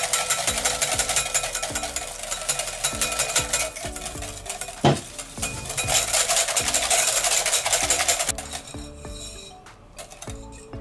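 Wire balloon whisk beating egg yolk and oil in a glass bowl, rapid strokes scraping and clicking against the glass as the mayonnaise emulsifies. One sharp knock about five seconds in, and the whisking thins out about eight seconds in.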